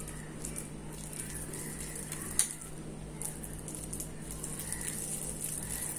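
Quiet hand-rolling of a sticky date-and-nut laddu mixture: faint soft handling noise over a steady low hum, with a single light tap on a ceramic plate about two and a half seconds in as a rolled laddu is set down.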